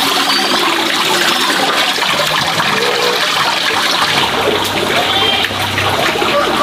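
Water pouring steadily from a bamboo pipe into a plastic basin, a continuous splashing rush.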